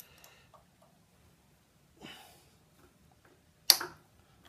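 Quiet handling of a homemade dial-indicator holder on a milling machine spindle, with a soft rustle about two seconds in and one sharp click near the end as the tool is gripped and moved.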